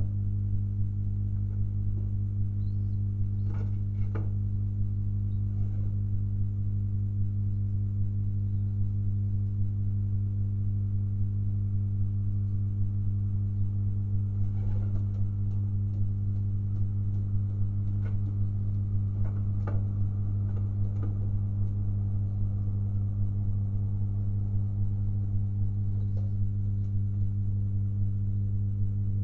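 Steady low electrical hum with a ladder of overtones, unchanging throughout. Faint soft sounds from pigeons in the loft come through a few times.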